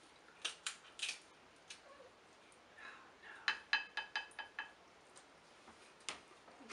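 Boiled snow crab leg shells being cracked and snapped apart by hand, giving a few sharp cracks followed by a quick run of crackling clicks about halfway through.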